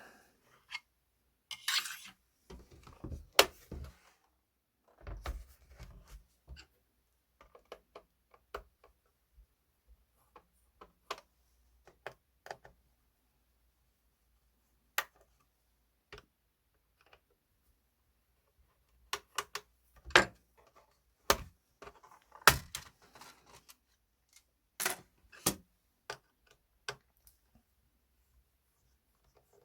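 Scattered clicks, taps and knocks of a Lenovo E540 laptop being handled and worked on by hand: hard plastic and small metal parts clicking and tapping. There are quiet gaps between, and a few sharper knocks near the start and around two-thirds of the way through.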